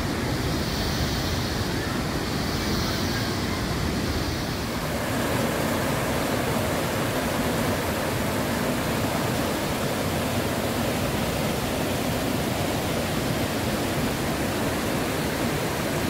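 River water rushing over boulders in shallow rapids, a steady hiss. In the first few seconds a high hiss swells and fades about every two seconds, and about five seconds in the sound settles into a fuller, even rush of water.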